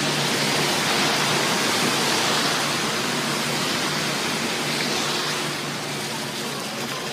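Water rushing down the stepped stone cascades of an artificial waterfall: a steady rushing that grows fainter about five seconds in.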